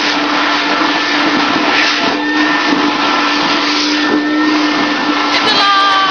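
A Build-A-Bear stuffing machine's blower runs steadily with a low hum, blowing fluffy stuffing through the metal stuffing tube into a plush bear while the foot pedal is held down.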